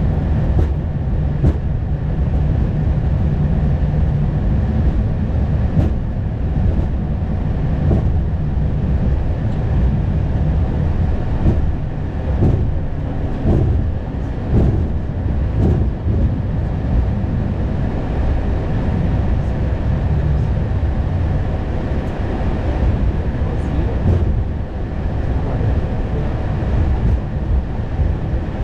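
Steady low rumble of cabin noise in an Airbus A220 cockpit, with a run of short knocks and rattles from about twelve to sixteen seconds in.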